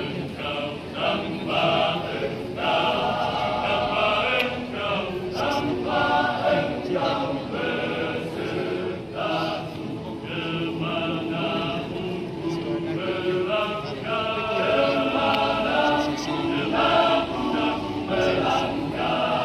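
Masamper choir singing a cappella, many voices together in harmony.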